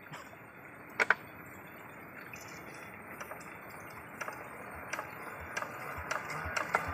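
Scattered light metallic clicks and knocks from hands working on a hand tractor's Yanmar diesel engine, with a sharp double click about a second in, over a steady hiss that slowly grows louder.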